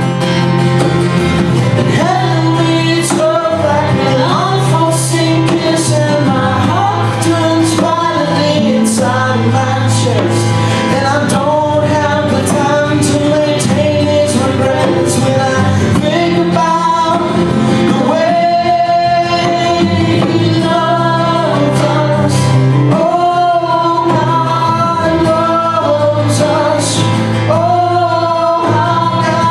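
Live worship band playing a slow song: a woman singing lead over strummed acoustic guitar and a drum kit, with cymbal strikes.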